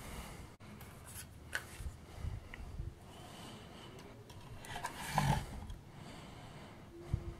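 Hands handling small parts: light rubbing and scattered clicks of a coil of solder and fingers against a plastic toy housing, with a louder rustle about five seconds in.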